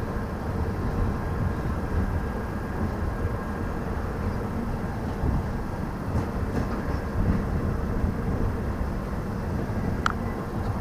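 Moving LHB passenger coach: a steady rumble and rush of the train running along the track, heard from outside the side of the coach.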